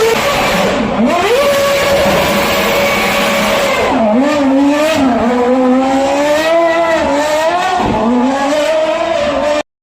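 Red Bull RB7 Formula One car's 2.4-litre Renault V8 running hard and loud. About a second in the revs fall sharply, then hold steady; from about four seconds in they dip and climb again and again. The sound cuts off abruptly near the end.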